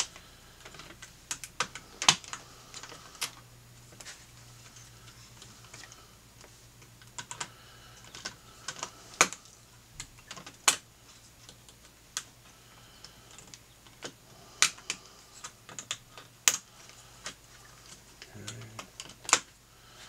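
Sharp, irregular small clicks as an X-Acto knife blade is slid under the melted-plastic rivets that hold a climate-control faceplate to its circuit board and levers them up, the rivet heads popping away one after another.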